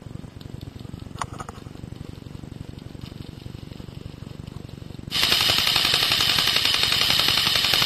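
Airsoft electric gun firing a long full-auto burst of about three seconds, starting about five seconds in and cutting off suddenly. A couple of sharp clicks are heard about a second in.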